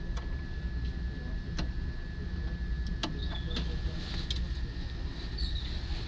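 Steady low machinery drone with a thin, constant high tone over it, and about five sharp clicks and knocks as the fire alarm panel's board and cover are handled.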